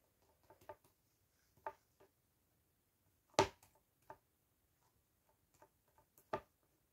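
Irregular light taps and knocks as a paint sponge is dabbed down onto a phone case lying on a table, about half a dozen, the loudest a little past three seconds in and another strong one near the end.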